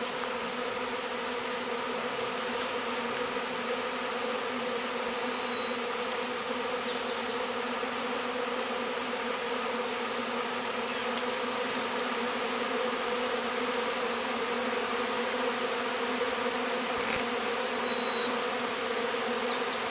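A large swarm of honey bees, several thousand strong, moving into a top bar hive: a continuous, even buzzing hum at a steady pitch.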